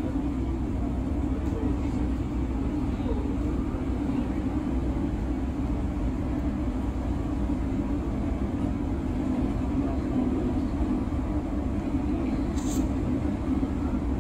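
Bus engine and road noise heard from inside the driver's cab while cruising on a highway, a steady low drone.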